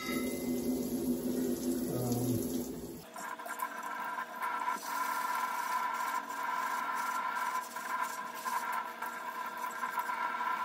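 Kitchen tap running while hands rub and rinse an unglazed clay pot lid under the stream, a steady water hiss with rubbing on the clay.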